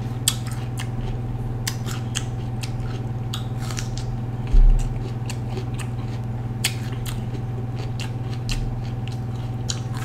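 Raw red bell pepper being chewed, a run of crisp crunching clicks, over a steady low electrical hum. A dull thump about halfway through is the loudest sound.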